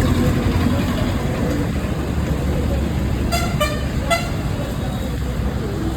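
A vehicle horn honks twice in quick succession, a little past halfway, over a steady rumble of road traffic.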